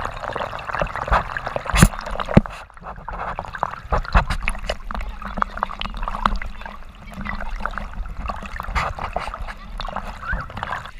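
Water rushing and splashing around a rider sliding head-first on a foam mat down a water-slide lane, with many short knocks and splatters.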